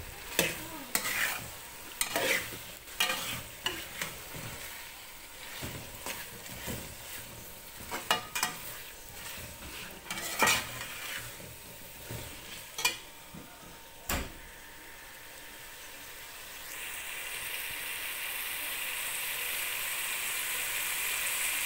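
A metal fork scrapes and knocks against a steel pot, stirring chopped onions into frying chicken over a sizzle. About two-thirds of the way through the knocking stops, and a steady frying sizzle slowly grows louder.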